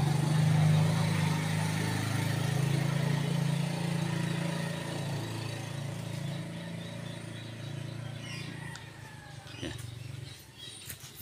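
A vehicle engine's low, steady hum that fades away gradually.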